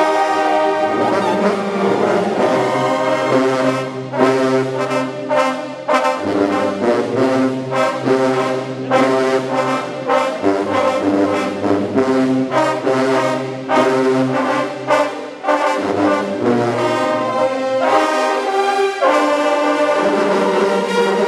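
A brass band of mellophones and other horns playing a tune together, with short, punchy notes over a low brass bass line that steps from note to note.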